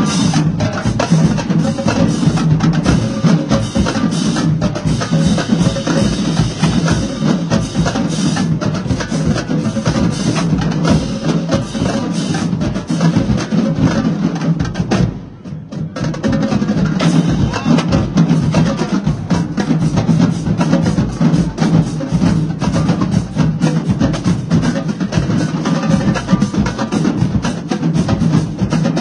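Marching band drumline of snare drums and crash cymbals playing a fast cadence. About halfway through it cuts off for a moment, then comes back in.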